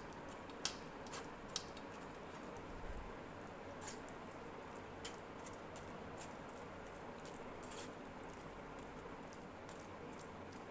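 A metal spoon scraping and pressing wet jamun pulp through a stainless-steel mesh strainer, with scattered light clicks and taps of the spoon against the mesh over a faint steady hiss.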